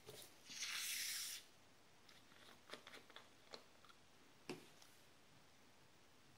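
Hiss of gas escaping as the screw cap is twisted off a plastic bottle of carbonated beer, lasting about a second. After it come a few faint clicks and taps from handling the cap and bottle.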